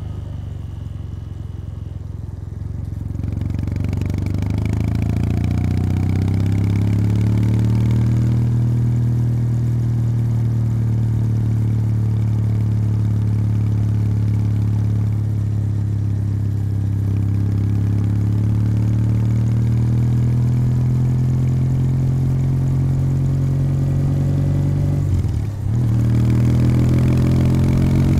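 Kawasaki W800's air-cooled parallel-twin engine through its stock exhaust. It runs low and quieter for the first few seconds, pulls up through the revs, then settles into a steady cruise. About 25 seconds in there is a brief break in the note, a gear change, and the revs climb again near the end.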